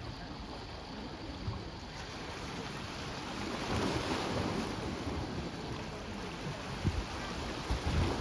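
Steady wind noise on the microphone over outdoor background noise, swelling a little midway, with a few low bumps near the end. The rocket's rumble is not yet heard.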